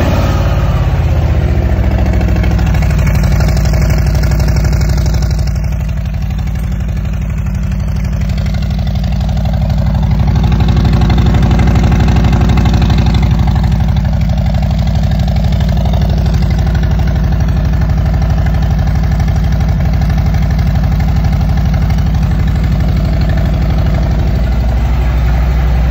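Harley-Davidson V-twin engine idling steadily through Vance & Hines Eliminator 400 slip-on mufflers, a loud, low exhaust rumble.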